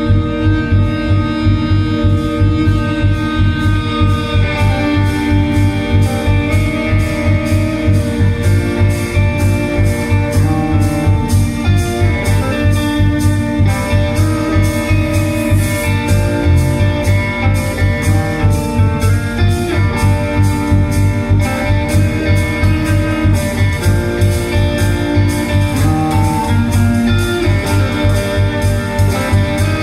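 A band playing guitar-led music over a steady beat.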